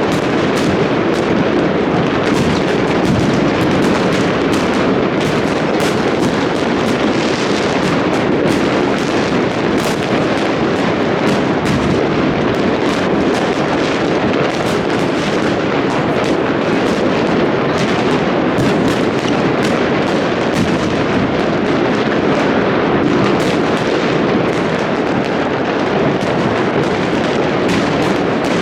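New Year fireworks and firecrackers going off in a continuous barrage: many overlapping bangs and crackles with no pause.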